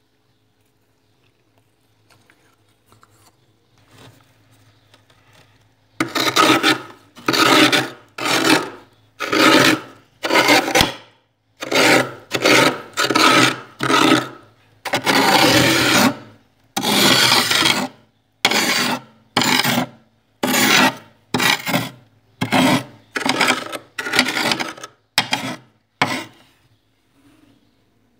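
A knife scraping thick frost off the inside walls of a freezer: faint scratching at first, then from about six seconds in a run of about twenty separate scraping strokes, roughly one a second.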